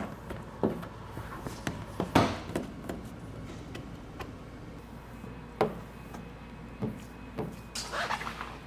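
Handling noises while paint protection film is worked onto a truck panel: a few sharp knocks, the loudest about two seconds in, between light rustles, and a short swish near the end.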